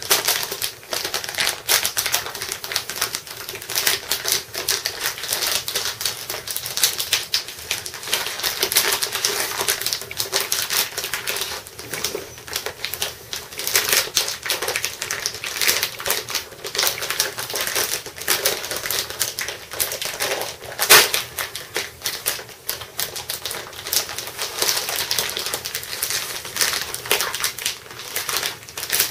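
Clear plastic packaging crinkling and crackling as it is handled and opened by hand: a dense run of rapid clicks and crackles, with one louder crack about 21 seconds in.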